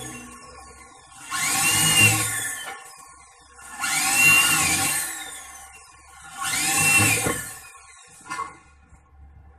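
Handheld electric drill boring holes through thin sheet metal in three short bursts, each spinning up and winding down with a rising-then-falling whine. A brief click follows near the end.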